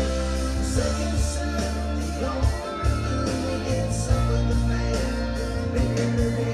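A rock recording with guitar and bass playing steadily through a steady beat.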